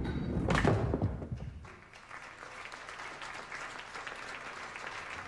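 Five-pin bowling ball rolling down the lane with a low rumble, crashing into the pins about half a second in. From about two seconds in, a crowd applauds steadily.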